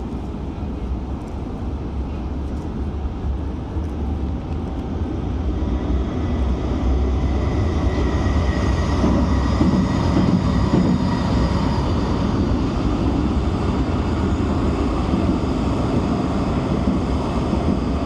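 Low, steady rumble of a heavy vehicle passing, building to its loudest about ten seconds in, with a faint high ringing tone around the peak.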